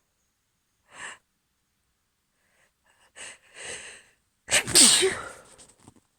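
A woman's allergy sneeze. A few short breaths build up, then one loud sneeze with a falling voiced cry comes about four and a half seconds in and trails off.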